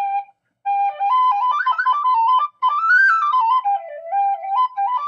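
3D-printed tin whistle modelled on an O'Riordan whistle, played: a held note, a short break for breath about half a second in, then a quick running melody of short notes that climbs and then falls again.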